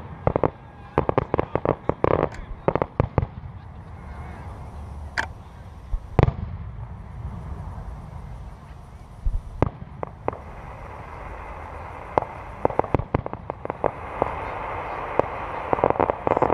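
Aerial fireworks bursting: a quick cluster of sharp bangs and crackles in the first few seconds, then single booms a few seconds apart, and denser crackling over a rising hiss near the end.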